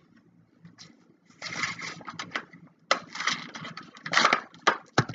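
Plastic and foil Yu-Gi-Oh booster-pack packaging crinkling and rustling in the hands in irregular bursts, with a sharp click near the end.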